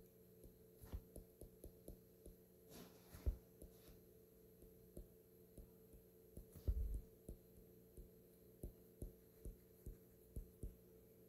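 Faint, irregular taps and small knocks on a touchscreen as an equation is handwritten on it, with one louder dull thump about two-thirds of the way in. A faint steady hum lies underneath.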